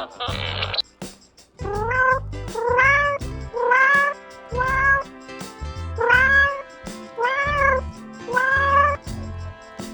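A cat meowing over and over, about seven short meows roughly a second apart, each rising and then falling in pitch, with background music underneath.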